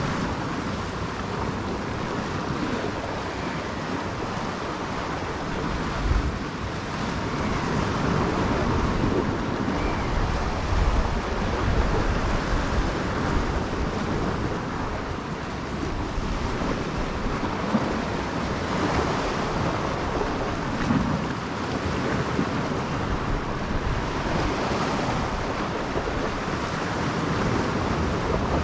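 Sea water washing against shoreline rocks, with wind gusting on the microphone a few times.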